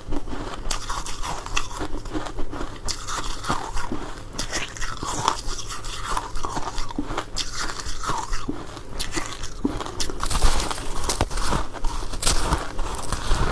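Close-up bites and chewing of powdery freezer frost, a dense run of irregular soft crunches that gets louder and sharper for a couple of seconds near the end.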